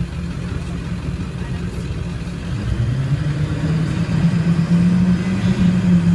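Engine of an amphibious duck tour vehicle, heard from inside the cab, pulling the vehicle out of the water and up a ramp; a steady low hum that grows louder from about halfway through as it takes the climb.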